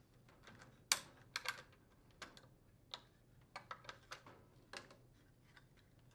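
Faint, irregular light clicks and taps, about a dozen, the loudest just under a second in: induction coils being unclipped from their retaining clips and handled.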